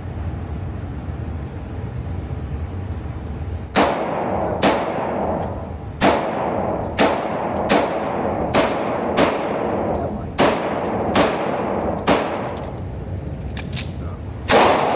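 Series of gunshots at a shooting range, about ten sharp shots roughly a second apart starting about four seconds in, each followed by a long echoing tail. Before the first shot only a steady low rumble is heard.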